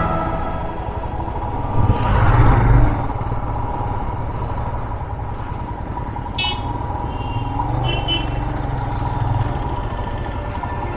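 Road traffic heard from a motorcycle ride: a steady engine rumble with wind and road noise, and short vehicle horn toots about six and a half and eight seconds in.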